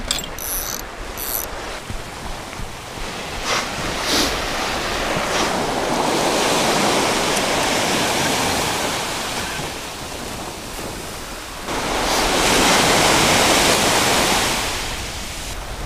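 Small waves breaking and washing up a sandy beach, the surge swelling twice. A few short clicks are heard in the first second or so.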